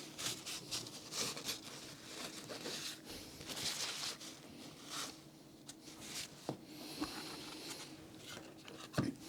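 Irregular rubbing and scraping strokes on a laser-cut plywood fascia panel, with a couple of light knocks, about six and a half and nine seconds in.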